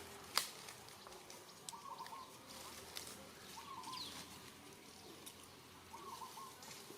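Three short chirping animal calls about two seconds apart over a faint background, with one sharp click just before the first call.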